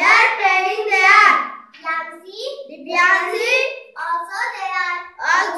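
A young girl's high voice reading English sentences aloud in a sing-song chant, in drawn-out phrases with short pauses between them.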